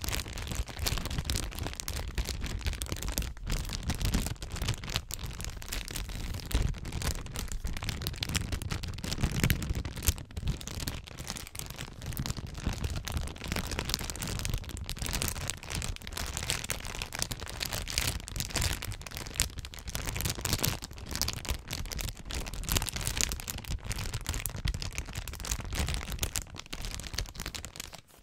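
Clear plastic bags crinkled and scrunched by hand right against a microphone: dense, continuous crackling with low handling thumps underneath.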